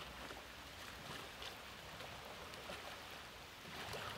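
Shallow river water running over a gravel riffle: a steady rush with small scattered splashes.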